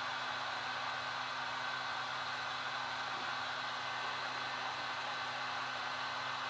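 Temperature-controlled heat gun blowing steadily: an even rush of air with a faint steady hum, warming the screen to soften the adhesive under the glass.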